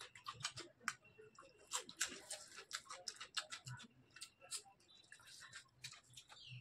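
A person eating close to the microphone: wet chewing and lip-smacking mouth sounds, a quick irregular run of soft clicks.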